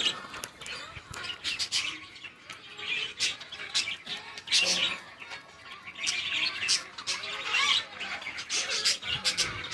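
Birds chirping and squawking: many short, sharp high calls scattered irregularly, with no steady rhythm.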